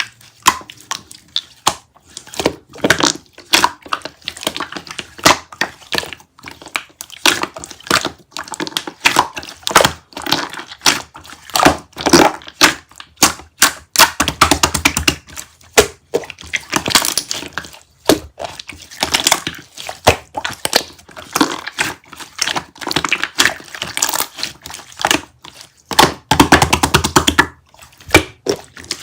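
Close-miked crackling, crunching and crinkling, with many sharp clicks and knocks in quick irregular succession.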